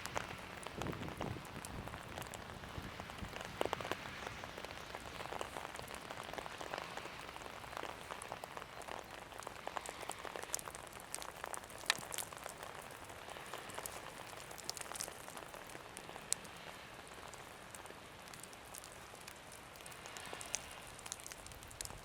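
Light rain pattering: a steady hiss with many scattered small drop ticks, a couple of them sharper.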